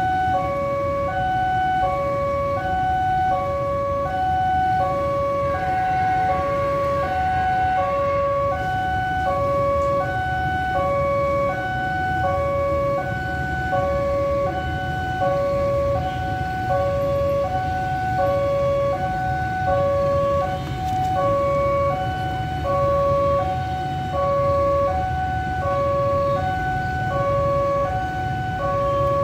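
Railway level-crossing warning alarm sounding two alternating electronic tones, high-low about once every 1.3 s, keeping up steadily while the barriers are down for an approaching train. Under it is a low rumble of idling road traffic.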